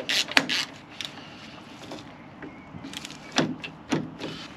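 Sharp clicks and knocks from work on a VW New Beetle's driver's door and its lock: a quick run of clicks at the start, then two louder knocks about three and four seconds in.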